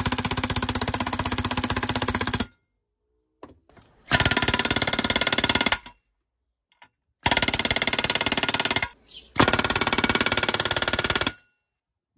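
Pneumatic air hammer with a rivet set hammering rivets into a vintage fire bell's steel mounting plate in rapid, evenly spaced blows. It runs in four loud bursts of about two seconds each, with short pauses between; the first stops about two and a half seconds in.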